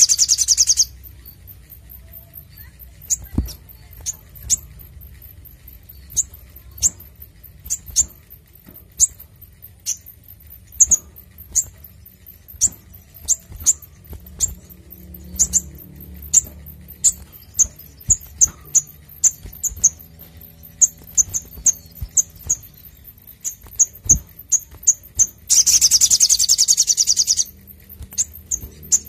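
Male olive-backed sunbird calling: sharp, high single chips, at times several a second, with a rapid high trill that dies away just after the start and another lasting about two seconds near the end.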